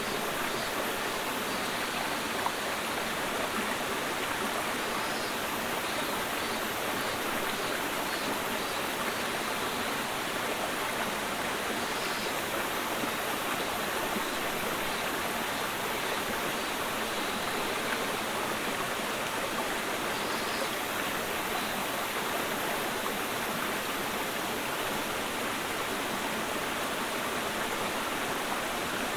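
Clear mountain stream babbling: steady, even rushing of flowing water.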